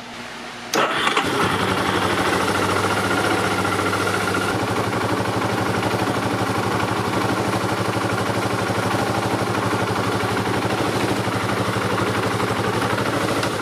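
Yamaha Terrapro engine starting about a second in and idling steadily, then shut off near the end. It is run briefly to check the oil check bolt for leaks after an oil change.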